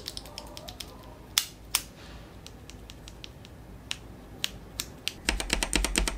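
Loose linear mechanical keyboard switch pressed by hand, a few separate clicks: first a dry, unlubed switch, then one lubed with Krytox 205g0. About five seconds in comes a quick run of keypresses on a keycap over an unlubed switch in a Royal Kludge RK68, with a low thump under them.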